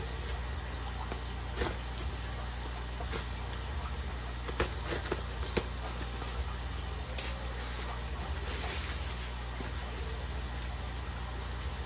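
Model train pieces and packaging handled by hand: scattered light clicks and rustles of plastic over a steady low hum.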